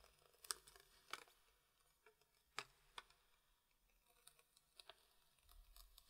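Near silence broken by a few faint, scattered clicks and crackles of a thin plastic backlight film being peeled by hand off the back of a phone's LCD panel.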